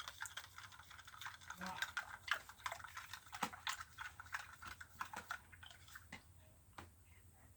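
Glue-and-borax slime being stirred and worked in a container: faint, irregular sticky clicks and crackles, thick in the first few seconds and thinning out toward the end.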